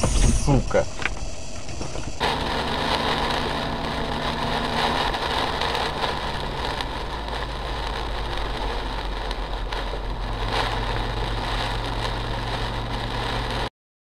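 Steady driving noise inside a car on a rain-soaked highway: a low engine hum under an even hiss of tyres and rain, cutting off suddenly near the end.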